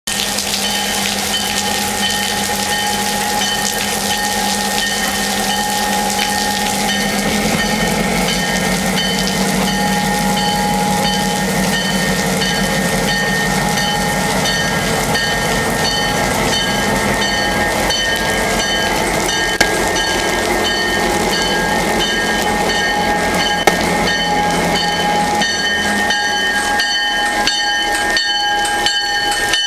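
EMD GP7 diesel locomotive running as it moves slowly past with a tank car: a steady engine hum over rainfall. Near the end, as it comes alongside, a quick regular clicking of wheels on the rails starts.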